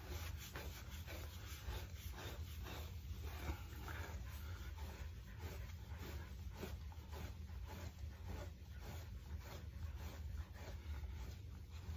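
A brush drawn again and again through a Keeshond's thick coat, a faint, steady run of short rubbing strokes.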